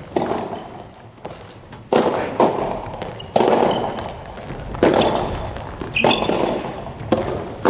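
Soft tennis rally: rubber balls struck by rackets and bouncing on the court, sharp hits about every one to one and a half seconds, each echoing briefly in a large indoor hall.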